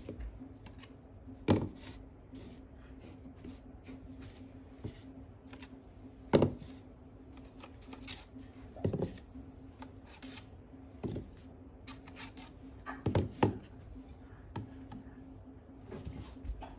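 Hard plastic stacking-toy rings being slid off their post and set down one at a time, making irregular soft knocks, clacks and rubbing, with a few louder knocks spread through.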